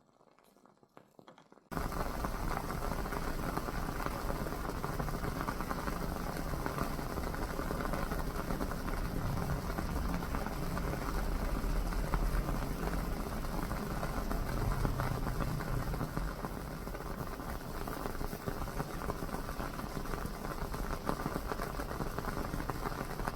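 WoodWick candle's wooden wick burning with a dense, steady crackle like a small fire, starting suddenly about two seconds in.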